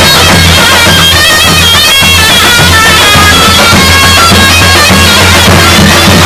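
Zurna, a shrill double-reed shawm, playing a loud, wavering melody over the beat of a davul bass drum.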